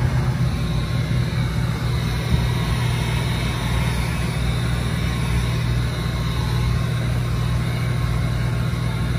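Handheld electric heat gun running steadily, its fan motor humming under a constant rush of air, while heat-shrinking window tint film onto a car's rear glass.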